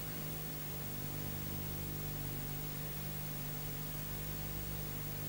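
Steady hiss with a low, even hum from an old analogue videotape recording, with no other sound over it.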